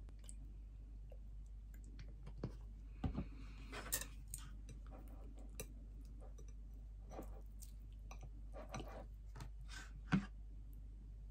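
Scattered small clicks and taps of tableware: a soy sauce dispenser being handled, then chopsticks working in a ceramic bowl, with louder taps about four seconds in and about ten seconds in.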